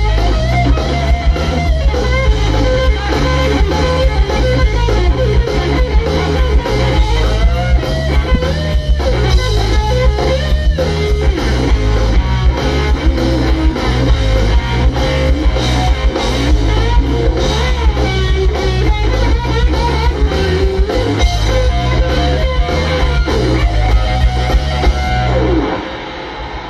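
Live rock band playing through a festival PA, heard from the audience: electric guitar over a repeating bass riff and drum kit. The band stops abruptly about a second before the end.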